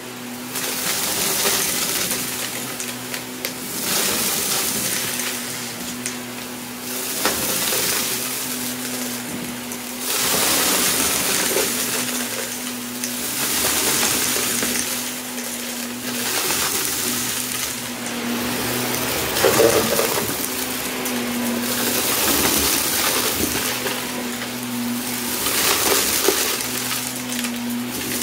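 Shark upright vacuum running over carpet, its motor holding a steady hum while it sucks up small hard bits of debris that rattle and clatter up the intake. The hiss and rattle swell and fall back every two to three seconds as the vacuum is pushed back and forth through the mess.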